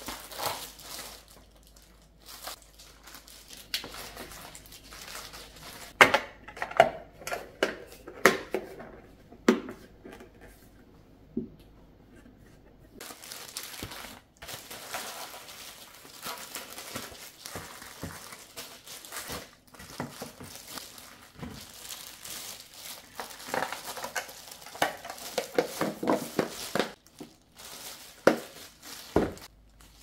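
Plastic food packaging and wrap crinkling and rustling as gloved hands handle it, with sharp clacks of plastic storage containers and lids being set down and fitted, in irregular bunches.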